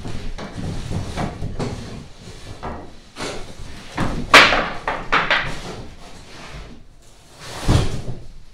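Large corrugated cardboard shipping box being lifted up off its wooden pallet: cardboard scraping and rubbing in a string of strokes, loudest about four and a half seconds in, then a dull thump near the end as it is set down.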